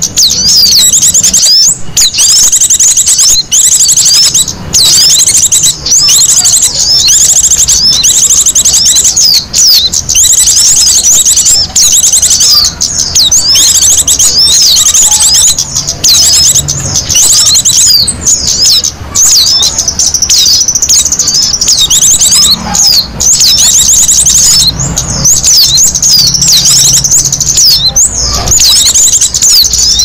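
Dense, rapid chirping and twittering of many small songbirds, high-pitched and continuous, from a bird-lure recording played to draw small birds in.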